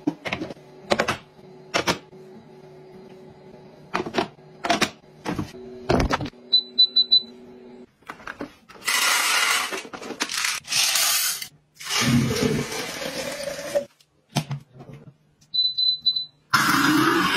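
Kitchen appliances being handled: a string of sharp plastic clicks and taps, then two runs of short high electronic beeps from appliance control buttons, and several stretches of loud rushing, rattling noise.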